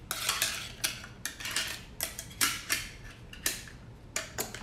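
Hard plastic clicking and clattering as a Ubiquiti Nano HD access point and its mounting plate are handled and pulled apart: an irregular run of sharp clicks.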